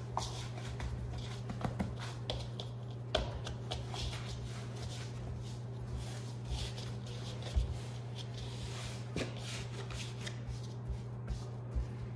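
Hands kneading soft, floury fry bread dough in a stainless steel bowl: irregular soft pats and rustles with a few sharper knocks, over a steady low hum.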